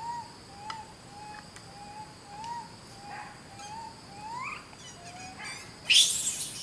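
A baby macaque giving a run of short, soft coo calls, about two a second, one sweeping higher near the end of the run. A steady high insect drone runs underneath, and a loud rustle comes about six seconds in.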